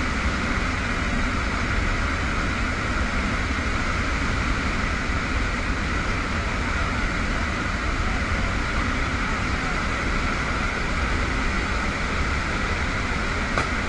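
Steady roar inside a military transport aircraft in flight with its rear ramp open: engine drone mixed with rushing wind, unbroken and even in level.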